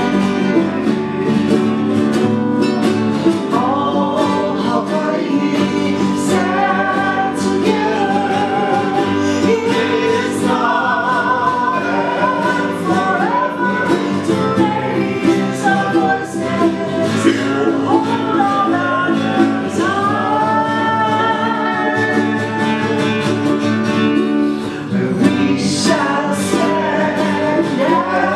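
Live song: a voice singing a melody over strummed ukulele and acoustic guitar, amplified through the stage microphones.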